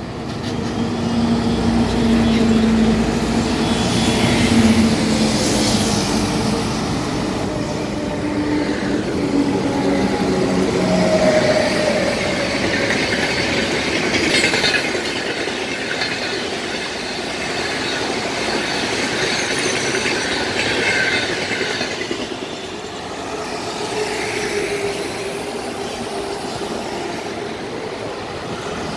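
Highway traffic passing: the diesel engines of a heavy truck and coaches drone by, rising and fading one after another, mixed with motorbikes.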